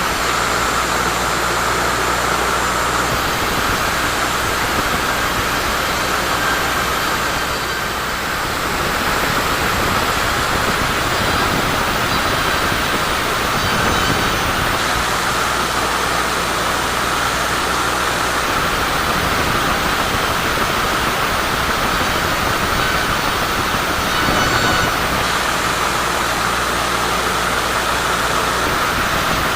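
Sawmill saw running steadily through a teak log, a continuous loud mechanical noise that dips briefly about eight seconds in.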